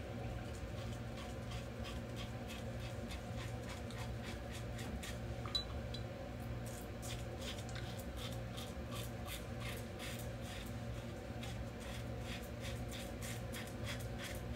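Open-comb double-edge safety razor scraping through lathered stubble in short, rapid strokes, faint at first and more distinct from about halfway through.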